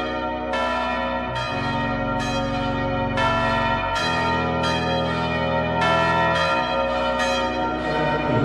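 Music: a chiming bell melody, about two struck notes a second, over sustained low chords that change every couple of seconds, like a keyboard interlude in a devotional song.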